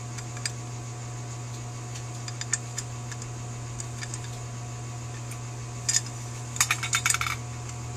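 Light metallic clicks and taps of a Holley 4000 carburetor's cast float bowl and its small parts being handled while the needle and seat are fitted, with a quick run of clicks about six seconds in. A steady electrical hum sits underneath.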